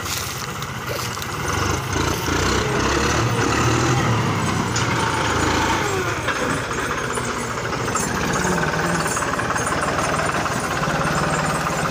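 Farm tractor's diesel engine running steadily as it pulls a trailer loaded with sugarcane close past, a little louder about two seconds in.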